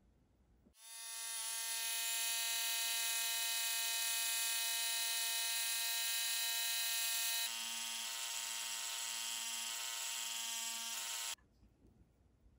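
Small electric mini drill whining steadily as it spins a 0.8 mm aluminium tube in its chuck against a sanding sponge. It spins up about a second in, the whine changes about halfway through with a low pulse roughly once a second, and it stops abruptly near the end.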